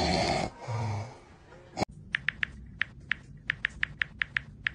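A man's snoring ends in the first second. After a sharp cut click, about a dozen quick, irregular typing clicks follow from a phone or laptop keyboard.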